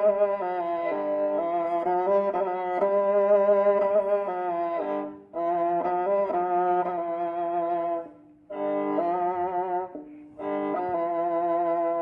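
Kyl-kobyz, the Kazakh bowed instrument with horsehair strings, playing a melody of long, wavering notes over a low held tone. The melody breaks off briefly about five, eight and ten seconds in.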